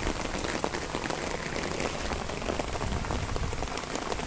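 Steady patter and hiss of rain falling on wet garden ground and plants, with many small drop ticks and a low rumble underneath.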